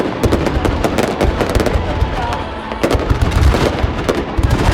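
Fireworks going off in quick succession: a dense run of cracks and booms over a low rumble, easing briefly about two seconds in before another volley.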